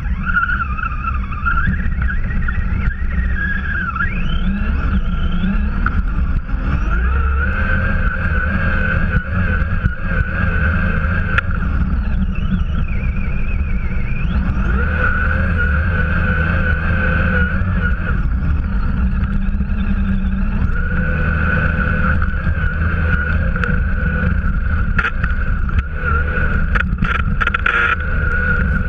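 Axial RC truck's electric motor and gears whining as it ploughs through deep snow, the pitch rising and falling with the throttle. A heavy low rumble from snow and wind buffeting the onboard microphone runs underneath, with a few sharp clicks near the end.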